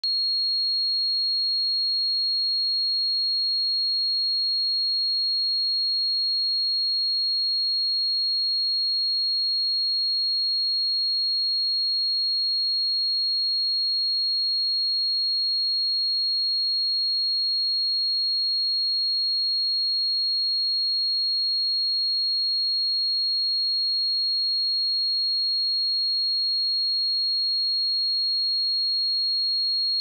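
A single steady, high-pitched 4286 Hz sine-wave test tone, held at constant pitch and level with nothing else in it.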